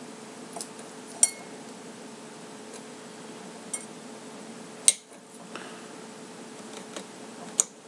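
A knife clicking and tapping against a hard surface while cutting open a small chili pepper: a handful of short, sharp clinks at irregular intervals, three of them louder, over a faint steady hum.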